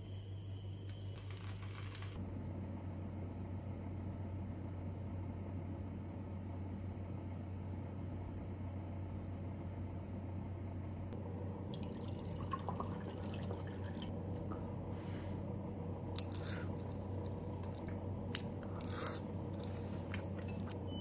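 Metal spoon clinking and scraping against a bowl, with soft eating and chewing sounds, over a steady low hum. The clinks and scrapes come scattered through the second half.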